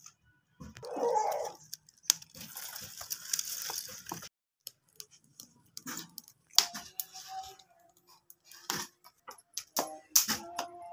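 Plastic bag rustling and crinkling as it is pushed under a clay wood-fire stove, followed by scattered clicks and short ringing clinks of steel bowls. A short call, about a second in, is the loudest sound.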